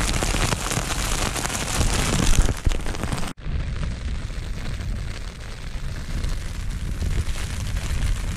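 Hail pelting on the fabric of an emergency bivvy shelter, a dense crackling patter. About three and a half seconds in it cuts off sharply and gives way to a low rumble of wind buffeting the camera's microphone out on the open hillside.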